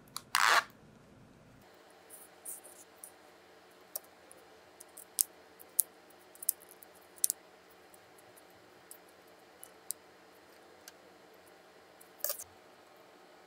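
Sparse small clicks and taps of metal tweezers picking up plastic nail tips and setting them down on a card, with a short louder scrape about half a second in and another near the end.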